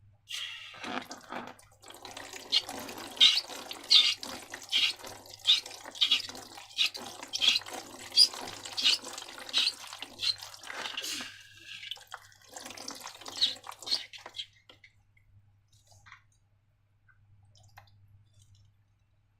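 Wet slime squelching and plopping in a run of sharp, sticky pops, about one a second, which stops about three-quarters of the way through.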